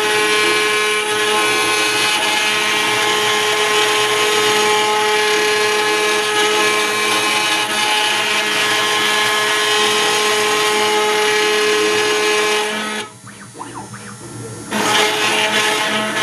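CNC mill spindle running at high speed with a small cutter milling aluminium plate: a loud, steady whine of many pitched tones from the cut. About thirteen seconds in it falls much quieter for nearly two seconds, then the cutting resumes.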